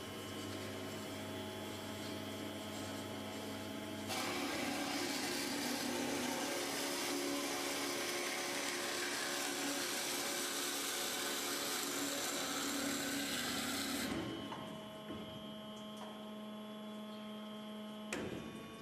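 CNC band saw working an automatic mitre-cut cycle: a steady electric and hydraulic hum, then about ten seconds of louder, rougher running as the saw head works, before it settles back to the hum. A short clack comes near the end.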